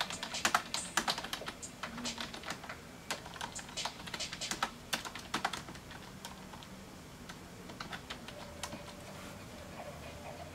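Typing on a computer keyboard: quick runs of keystrokes for about the first six seconds, thinning to a few scattered presses and stopping shortly before the end.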